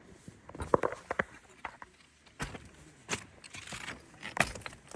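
Hiker's footsteps on the mountain trail at a steady walking pace, a crunching step about every two-thirds of a second.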